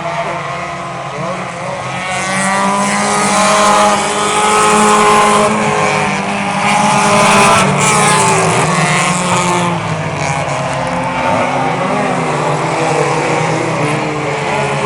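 Several small race cars running at speed around the oval, their engine notes overlapping and rising and falling in pitch as they pass. Louder from about two seconds in until about ten seconds, as the pack goes by close.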